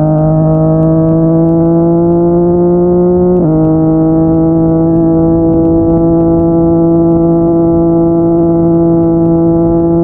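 Yamaha MT-09's inline three-cylinder engine through a Yoshimura R55 slip-on exhaust, pulling in gear with its pitch slowly rising. About three and a half seconds in, the revs drop sharply on an upshift, then it runs on at a steady, nearly level pitch.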